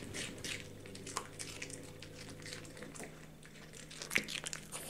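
Yorkshire terrier chewing small pieces of fresh kohlrabi: a run of small crunches, with one louder crunch about four seconds in.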